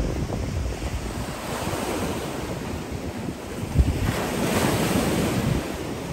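Indian Ocean surf washing onto a beach, with a wave's hiss swelling about four seconds in. Wind rumbles on the microphone, with one sharp gust thump just before the swell.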